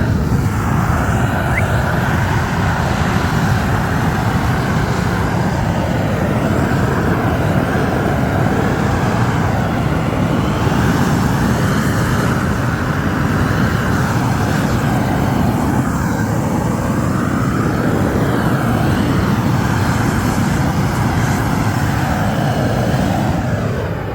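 Gas roofing torch burning with a loud, steady roar that swells and eases slowly, as used to heat and lay bitumen isogam membrane.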